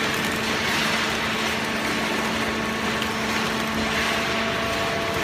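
Automatic horizontal baler's hydraulic power unit running with a steady machine hum, a low tone in it dropping away near the end.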